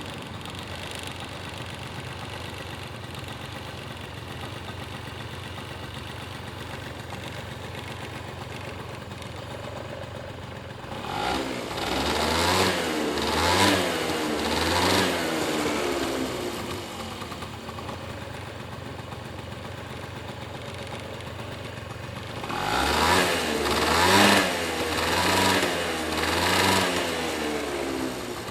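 Honda Dio AF18 scooter's 50cc two-stroke engine idling, then revved in two bursts of several quick throttle blips each, dropping back to idle between them. The engine has an abnormal noise, from the engine and possibly the drivetrain.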